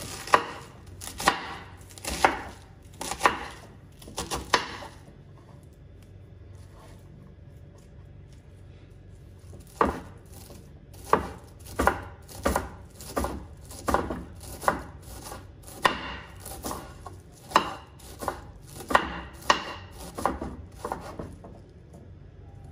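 Kitchen knife chopping cabbage on a bamboo cutting board: sharp strikes of the blade through the leaves onto the wood, about one a second at first. After a lull of about five seconds the chopping resumes a little faster, about one and a half strikes a second.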